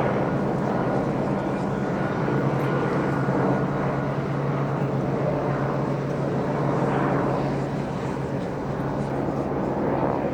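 Steady engine drone with a low hum, swelling slightly a couple of times.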